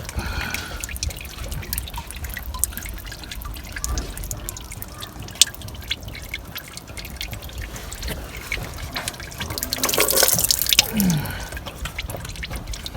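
Used engine oil dripping and trickling from a Volkswagen Touareg's 4.2 V8 as the last of it drains out after the oil filter is taken off. There is a louder rustling burst about ten seconds in.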